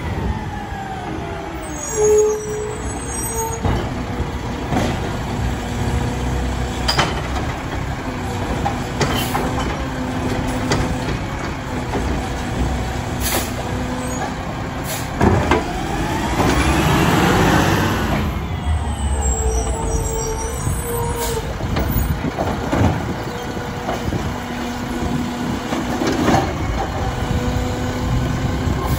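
Mack LR side-loader garbage truck running at the curb while its Labrie Automizer hydraulic arm grabs, lifts and dumps a cart, with a steady hydraulic hum and several metallic clanks. Air brakes hiss, and about halfway through the engine revs up and settles again.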